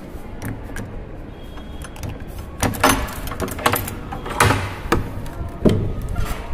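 A key turning in a brass padlock, then the padlock being taken off and a metal barrel bolt drawn back, with several loud metallic clanks and knocks. The door swings open near the end.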